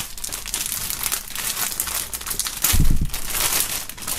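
Clear plastic bag around a folded T-shirt crinkling as hands handle and smooth it, with a brief low bump about three seconds in.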